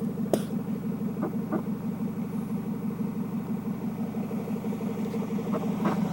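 An engine running steadily at an even speed, with a few short clicks or knocks over it.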